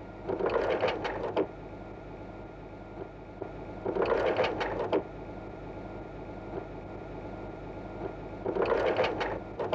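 Three bursts of rapid mechanical clatter, each about a second long and a few seconds apart, over a steady low hum.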